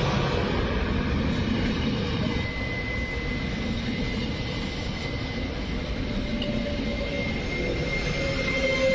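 ETR 204 electric multiple unit running past along the station platform: a steady rumble of wheels on rails, with a thin, steady high electric whine coming in about two seconds in.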